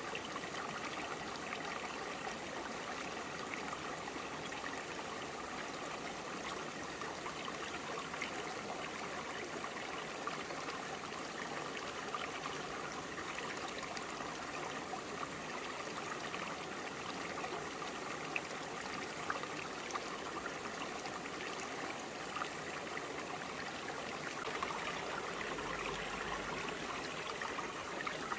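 Clear, shallow forest stream flowing steadily over broad, flat rocks, with a continuous babble and small splashes.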